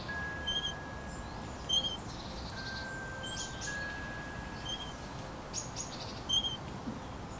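Playground swing squeaking in a steady rhythm as it swings, a short high squeak about every second and a half, with birds calling in the background.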